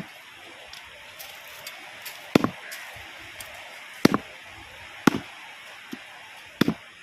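Long knife chopping through a grouper's head and bones onto a wooden board: four sharp chops, each a quick double strike, about a second or two apart, over a steady background hiss.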